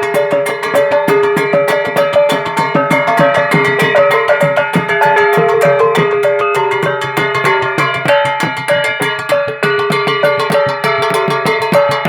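Music with fast, steady percussion strokes over ringing pitched notes.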